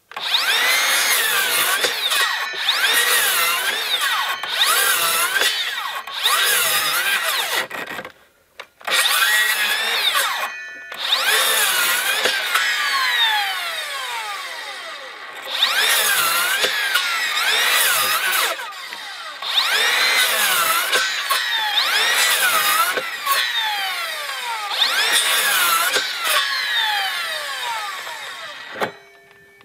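Makita XSH06 36-volt cordless 7 1/4-inch circular saw making rapid back-to-back crosscuts through wood, the motor's pitch dipping and recovering about once a second as each cut loads it, with a few brief stops where the blade coasts down without the blade brake engaging. Near the end it cuts off abruptly, the shutdown after some 310 cuts that the owner puts down to thermal overload or some other fault.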